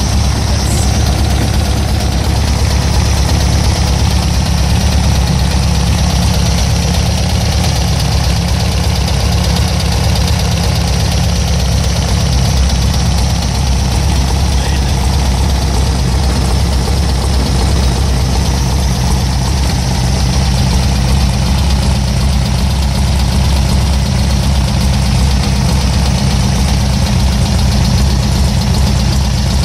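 Small air-cooled engine fitted with electronic ignition, running steadily at idle with an even, unchanging pitch.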